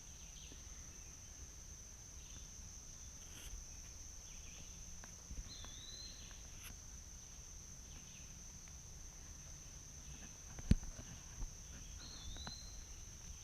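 Insects in woodland droning with a steady high-pitched trill. A short rising-and-falling chirp sounds twice, about six seconds in and near the end, and a single sharp click stands out shortly before it.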